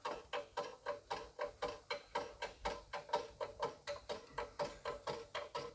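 Jack under the rear suspension arm being worked to raise the suspension, clicking rhythmically about four times a second.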